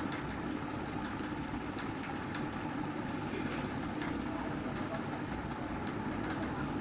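Steady rumbling noise with many light, quick clicks scattered through it.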